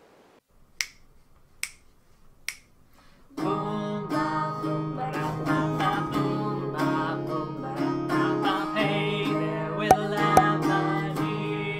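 Background music that opens with three finger snaps about a second apart, then plucked guitar comes in about three and a half seconds in and carries on.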